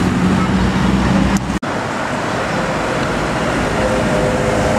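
Road traffic at close range: a heavy vehicle's engine running over steady tyre and road noise. The sound cuts out for an instant about a second and a half in.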